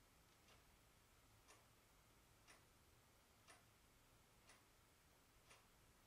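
Faint, steady ticking, one tick each second.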